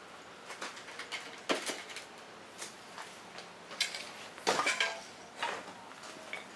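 Metal tools and parts clinking and knocking as they are handled, in scattered sharp knocks with the loudest clatter about two thirds of the way through.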